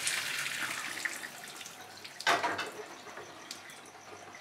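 Boiled noodles and their hot cooking water poured from a pot into a plastic colander, the water splashing through and draining away. A second, louder splash comes a little over two seconds in, then a fainter trickle.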